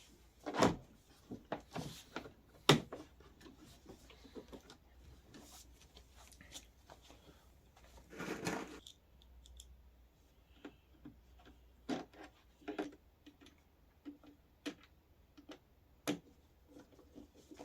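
Plastic windshield parts of a kids' ride-on car being handled and set in place: scattered knocks and clicks of plastic on plastic, with a longer rustle about eight seconds in.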